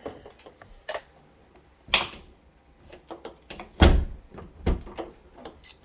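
Door on a newly fitted hinge being closed and opened, with a few sharp knocks and thuds, the loudest about four seconds in, and a cracking noise at the hinge. The cracking is taken for a hinge screw driven in crooked that needs backing out a little.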